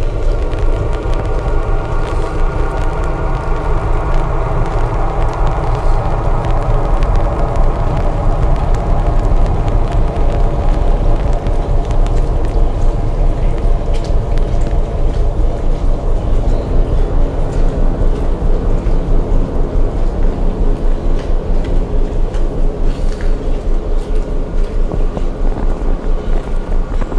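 Ambient drone music: held synth tones over a deep rumble, with a regular pulse coming in about two-thirds of the way through.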